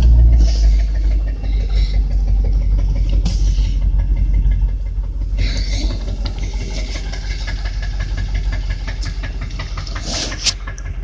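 Land Rover Discovery engine idling with a fast, even ticking knock, which the owner puts down to an exhaust manifold leak.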